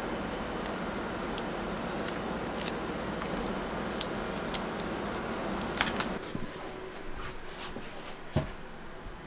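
Paper backing being peeled off 3M adhesive mounting strips: scattered crisp crinkles and ticks over a steady background hiss that drops away about six seconds in. A single dull thump follows about eight seconds in.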